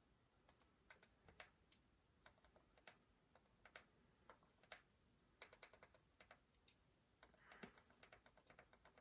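Faint, irregular clicking of buttons being pressed, scattered singly and then in quick runs, the densest run starting about seven seconds in, against near silence.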